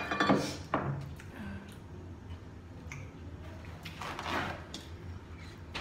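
Small eating and food-handling sounds at a table: clicks and soft squishes as boiled seafood and eggs are picked apart by hand. A sharp click comes right at the start, and about four seconds in there is a short rustle of a paper towel being pulled off the roll.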